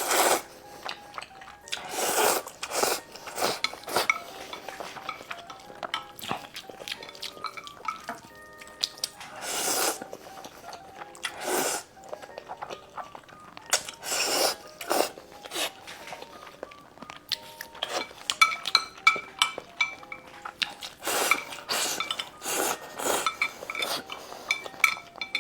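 Close-miked eating sounds: utensils clinking against bowls and plates, and repeated loud mouth noises of half a second to a second as noodles and eel are eaten. A soft background melody plays underneath.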